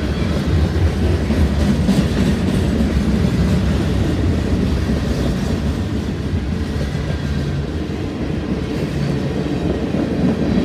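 Cars of a CSX freight train, mostly tank cars, rolling past at close range: a loud, steady noise of steel wheels running on the rails.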